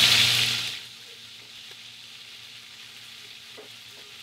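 Chicken breasts and garlic sizzling in a hot stainless pot on a gas range. The sizzle fades out under a second in and starts to come back near the end. In between are a steady low hum and a couple of faint metal clinks.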